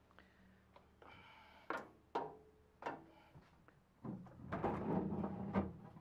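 Sheet-metal body of a microwave oven being handled: three sharp clanks that ring briefly, then about two seconds of metal scraping and rattling as the unit is shifted on its stand.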